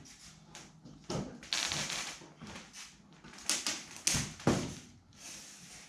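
Spline roller tool pressing rubber spline into the channel of a window screen frame: irregular scraping and rolling strokes with a few sharp clicks, the loudest about three and a half and four and a half seconds in.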